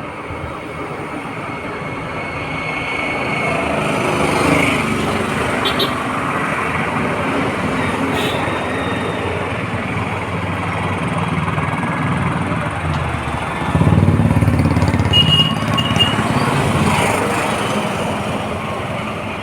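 Street traffic noise: a steady, even rumble and hiss of passing vehicles that slowly grows louder, with two short high beeps about fifteen seconds in.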